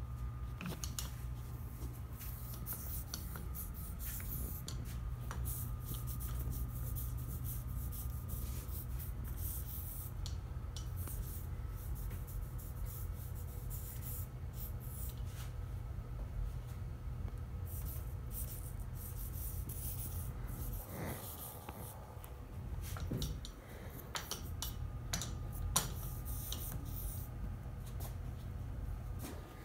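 Rubber hand brayers rolling split-fountain bands of tacky ink across wood type and an ink slab: scratchy rubbing with many light ticks, over a steady low hum.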